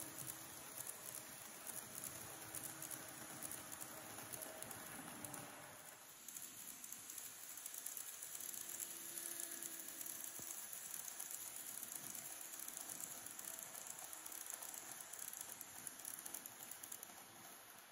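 Model of a JNR 583 series electric train running on its track: a faint motor whine that comes and goes, over a light, steady clicking of the wheels on the rails.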